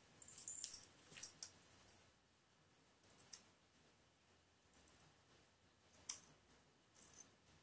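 Scissors cutting through folded cloth: irregular sharp snips and clicks of the blades, several close together in the first two seconds, then a few scattered snips.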